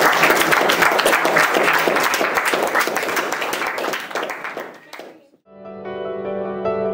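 An audience applauding, the clapping fading out about five seconds in. After a brief gap, instrumental music with long held notes starts.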